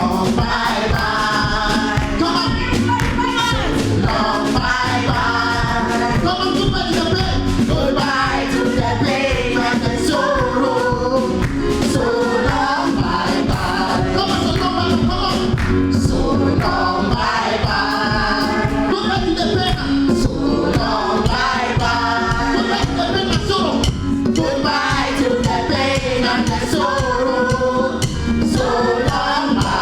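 Gospel choir singing over a live band with a steady beat.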